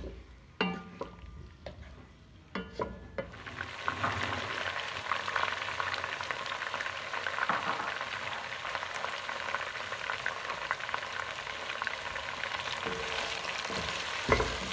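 Chicken pieces and chopped garlic frying in oil in a pot, stirred with a wooden spatula. There are a few knocks of the spatula against the pot in the first seconds. About three and a half seconds in the sizzling turns loud and stays steady, with another knock or two near the end.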